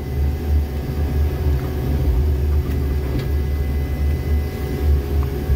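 Jackson 6700 railway tamper's diesel engine running steadily under working load, a continuous low drone with a few steady higher tones above it, heard from inside the cab.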